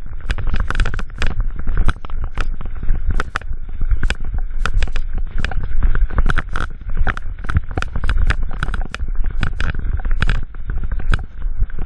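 Mountain bike clattering and rattling over a rocky singletrack descent, a dense run of irregular knocks and clicks as the wheels hit stones, over a heavy rumble of wind buffeting the microphone.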